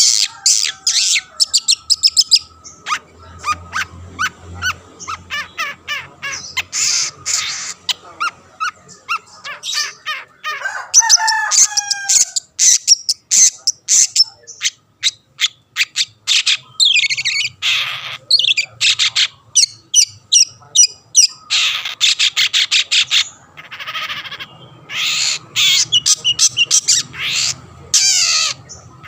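Long-tailed shrike singing energetically: long runs of rapid, harsh chattering notes, with a few short whistled slurs about a third of the way in and brief pauses between bouts.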